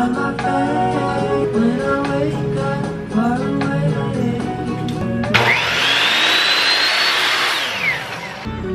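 Background pop music with singing, then about five seconds in a sliding miter saw starts with a sudden loud burst: its motor whine climbs fast, holds while it cuts through a pine tongue-and-groove board, and falls away as it winds down near the end.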